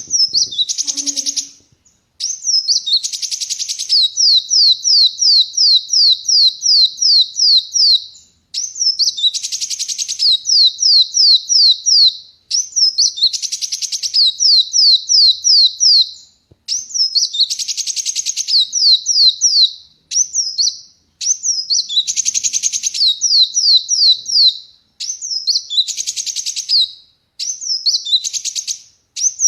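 Kolibri wulung sunbird singing loudly and without let-up, in phrases a few seconds long. Each phrase is a fast run of high, descending whistled notes, several a second, broken by short harsh, buzzy rasps.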